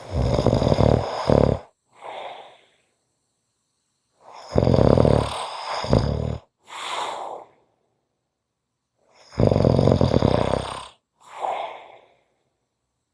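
A person snoring in a steady rhythm, three breaths about five seconds apart. Each breath is a loud snore followed by a shorter, quieter one.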